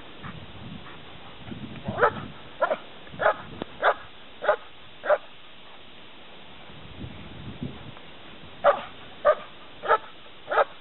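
German Shepherd barking at a helper in a blind: the bark-and-hold of protection work. There are about six barks in steady rhythm, roughly one every 0.6 s, starting about two seconds in; then a pause, then four more near the end.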